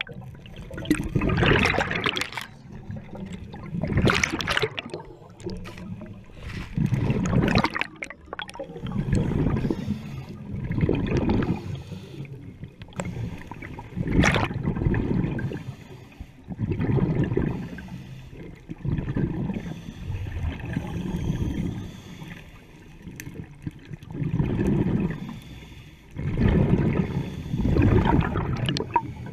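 Scuba diver breathing through a regulator underwater: exhaled bubbles gurgle and rush past in repeated bursts about every two to three seconds, with quieter stretches between breaths.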